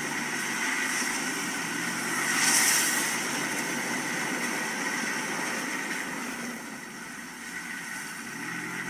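Steady vehicle running and road noise, with a louder hissing rush that swells and fades about two and a half seconds in.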